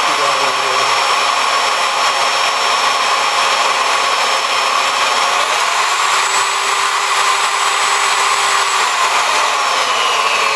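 Milwaukee 4204-1 magnetic drill press motor running, its whine rising in pitch about five seconds in, holding, then falling back near the end as the speed potentiometer is turned with a small screwdriver in place of the broken-off speed dial.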